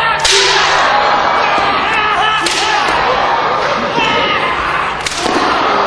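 Three hard strikes in a taekwondo demonstration, about two and a half seconds apart, each a sharp crack with a short ringing tail, with voices shouting between them.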